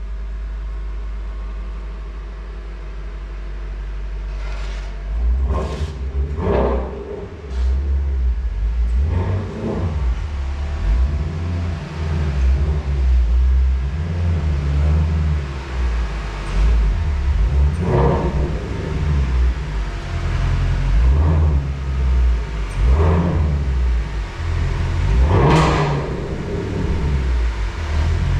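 A vehicle engine running with a deep rumble. It holds steady at first, then surges unevenly from about five seconds in, with several short sharp bursts.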